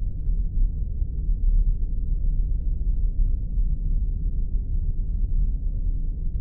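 Spaceship engine sound effect: a steady deep rumble, nearly all of it low bass, with no changes.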